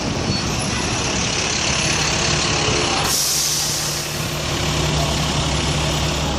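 Busy city street traffic, with a heavy vehicle's air brakes letting out a sharp hiss for about a second, about three seconds in. After the hiss, the vehicle's engine idles with a steady low hum.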